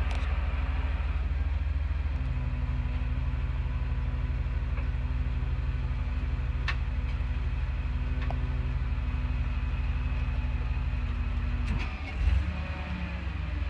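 Tow truck's engine idling steadily with a low, even rumble. Near the end the sound shifts briefly, with a short thump.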